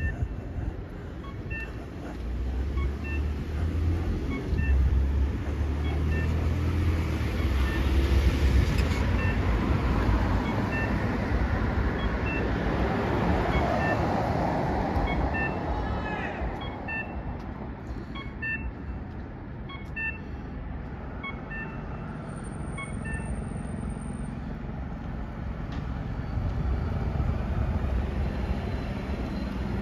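Street traffic: car and truck engines and tyres as vehicles drive past close by, the loudest pass around the middle. A small electronic beep repeats about every two-thirds of a second through most of it.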